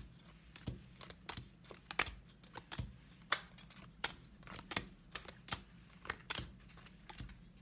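Playing cards from a Bicycle Ghost Deck dealt one at a time onto three piles on a wooden table, each card landing with a light tap, about two to three taps a second.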